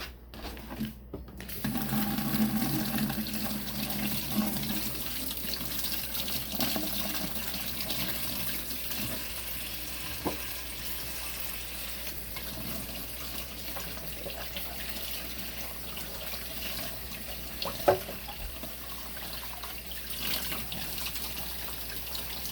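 Kitchen tap turned on and running into the sink while something is rinsed and washed up, the splashing steady throughout. One sharp clank rises above the water near the end.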